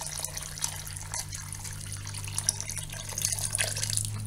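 A thin stream of water pouring into a large pot of red wine and chopped vegetables, splashing and trickling as the liquid is topped up. A low steady hum runs beneath it.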